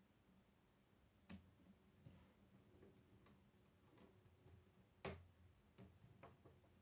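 Faint scattered clicks of plastic K'nex rods and connectors being handled and snapped together, the loudest click about five seconds in.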